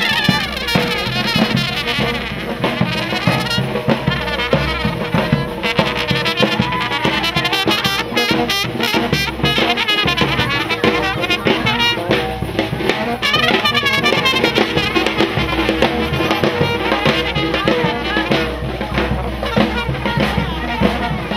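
Brass band with drums playing lively dance music, a horn leading with a fast, ornamented melody over a steady beat.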